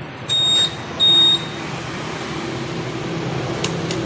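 Two short, high electronic beeps about half a second apart, over a steady background hum of a running motor and traffic noise.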